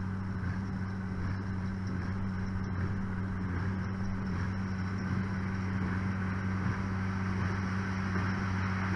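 Tractor engine running at a steady speed, a constant low hum with no change in pitch.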